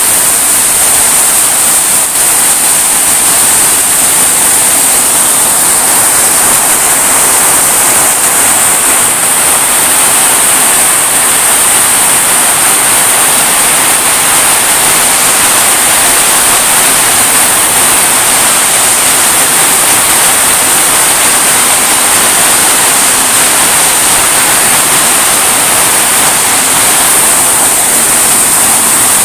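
Heavy tropical downpour: a loud, steady hiss of rain pouring onto trees, roofs and the yard, unbroken throughout.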